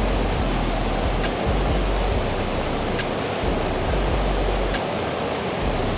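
Debris flow flash flood from a wildfire burn scar: a thick slurry of muddy water and jet-black organic matter rushing past in a steady, loud wash of noise. A low rumble comes and goes underneath it.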